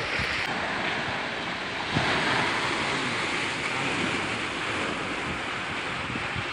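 Steady wash of surf breaking on a sandy beach, with wind rumbling on the microphone.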